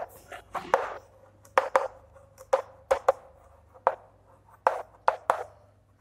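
Chalk writing on a chalkboard: about a dozen short, sharp taps and scrapes at irregular intervals as the letters are stroked on.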